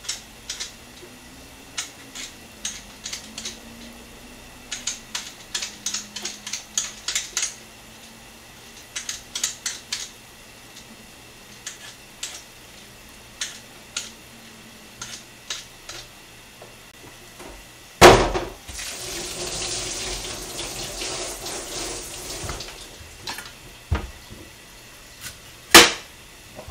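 Irregular quick scraping clicks as a Korean radish (mu) is peeled, going on for about fifteen seconds. Then comes a loud knock, and a kitchen tap runs for about five seconds as it is rinsed. A sharp knock sounds near the end as it goes down on the plastic cutting board.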